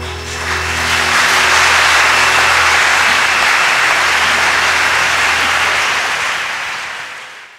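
Theatre audience applauding as the orchestra's last held chord dies away. The applause swells within the first second, holds steady, then fades out near the end.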